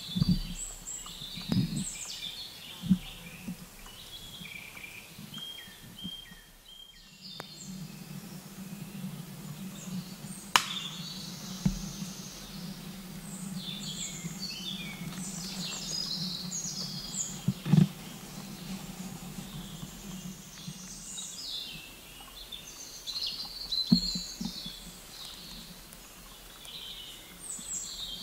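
Several woodland songbirds singing and calling at once, short chirps and trills overlapping without pause. A low steady hum runs through the middle stretch, and a few sharp knocks stand out above the birdsong.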